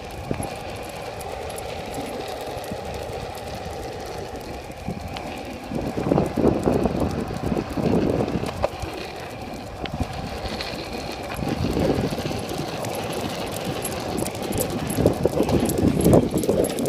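Skateboard wheels rolling steadily over an asphalt path, a continuous rumble that grows louder and rougher in stretches through the second half.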